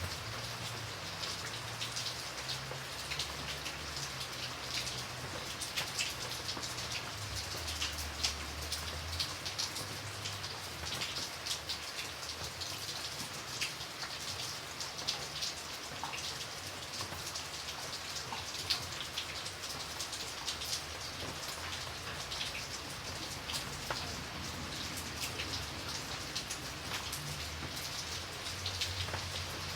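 Steady rain falling, with many individual drops tapping sharply on a surface over a continuous patter, and a faint low rumble underneath.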